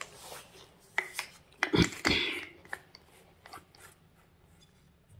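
Light knocks and clicks of tools or hardware being handled, with a louder clatter about two seconds in.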